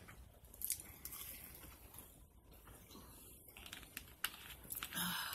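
Faint eating and drinking sounds: sips from a plastic soda bottle and chewing, with scattered small clicks and crinkles.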